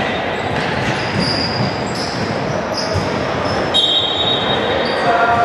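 Basketball game on a hardwood gym court: sneakers squeaking in short high chirps several times, the ball bouncing, with a knock about three seconds in, all echoing through the hall.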